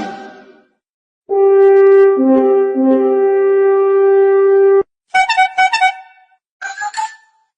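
A run of phone ringtone clips. First a long horn-like note, with a lower second note joining partway through, which cuts off abruptly. Then two short bursts of quick chiming notes.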